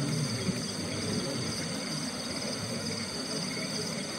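Crickets trilling steadily in high, finely pulsing bands over a constant low rushing noise.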